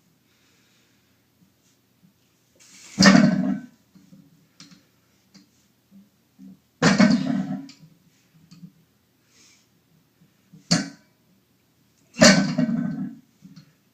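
A man breathing out hard, grunting with each lift of a 160-pound anvil: three loud breaths about four seconds apart, with a short sharp knock between the second and third.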